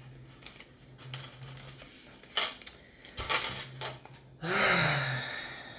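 Light crinkles and clicks of a small packet and the little plastic parts of a DIY candy kit being handled by fingers. About four and a half seconds in comes a loud, exasperated sigh with a groan in it, at the fiddly job.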